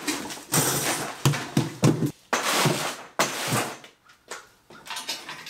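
Cardboard shipping box and crumpled packing paper rustling and scraping as long metal roof-rack rails are pulled out of it, in several short bursts that die down about four seconds in.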